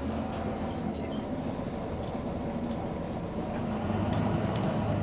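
Volvo B9TL double-decker bus running, its diesel engine giving a steady low drone that grows louder about four seconds in, with a few faint clicks and rattles.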